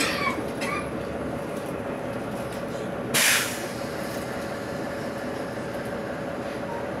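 Steady running noise of a tram heard from inside the passenger cabin, with a faint steady tone. About three seconds in comes a short, loud hiss.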